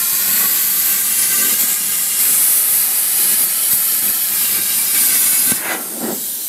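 Plasma cutter cutting a round hole through the steel end of a fuel tank: a loud, steady hiss of the arc and air. It cuts off about five and a half seconds in, leaving a softer hiss.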